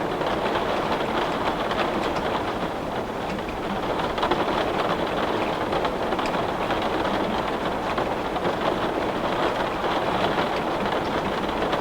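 Heavy rain pattering on window glass, a steady dense hiss with many small drop ticks.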